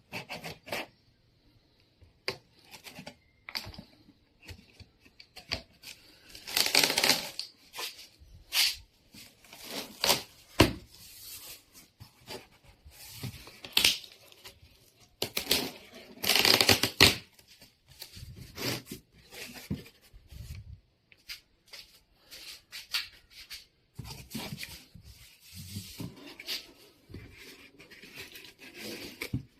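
Packaging being handled and torn open: irregular rustles, rips, clicks and knocks, with louder rustling bursts about 7 and 16 seconds in.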